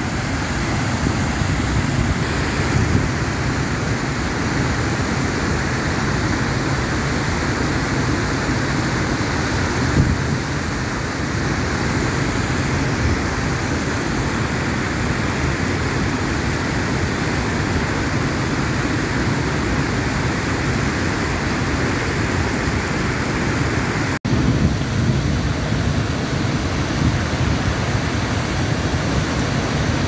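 Steady rushing roar of a large waterfall and foaming river rapids. The sound cuts out for an instant about 24 seconds in, then resumes unchanged.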